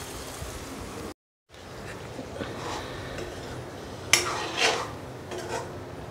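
A metal spatula stirring and scraping pointed gourd pieces in curd gravy in a metal kadai, with a few louder scrapes against the pan about four seconds in. Before that comes a steady frying hiss, broken off by a brief drop-out.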